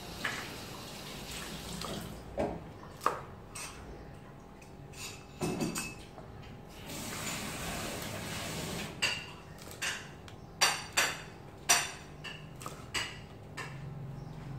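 Kitchen knife chopping long beans on a round chopping board: irregular sharp knocks of the blade striking the board, a few at first, then quicker runs of chops in the second half.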